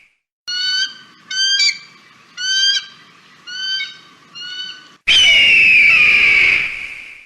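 Bird-of-prey calls: five short, high chirping calls about a second apart, then, about five seconds in, a loud, long scream that falls in pitch and fades.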